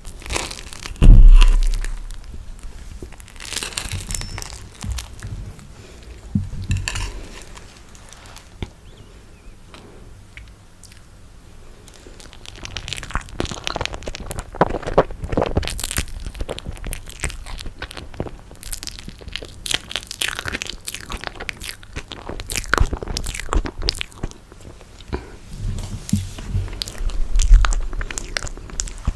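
Close-miked eating of toasted marshmallow: crunching through the crisp toasted skin and chewing, with many small sticky crackles and clicks. A heavy low thump about a second in; the eating goes quieter for a few seconds mid-way, then the crackling grows busier.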